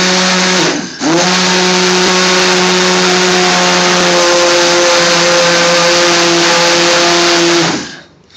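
Handheld stick blender running in a bowl of thick base gravy, a steady high motor whine. A little under a second in it winds down and spins back up, and it switches off near the end.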